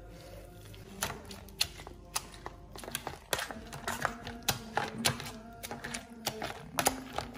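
Metal potato masher knocking and clinking against a metal bowl as it mashes steamed vegetables, in a quick, irregular run of sharp clicks starting about a second in.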